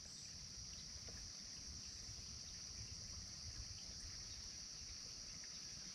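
Faint, steady chorus of insects: an unbroken high-pitched trill that holds one pitch throughout.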